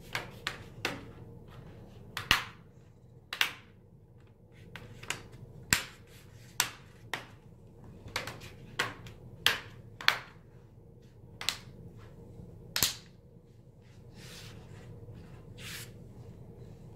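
The plastic screen bezel of an Acer Aspire ES 15 laptop snapping back onto the lid as its clips are pressed home. It makes a long run of sharp clicks, irregularly spaced about a second apart, with a few softer ones near the end.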